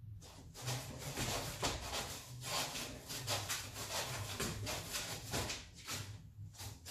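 Rapid scratching and rustling, many quick strokes in a row, as a man and a young German wirehaired pointer scuffle together.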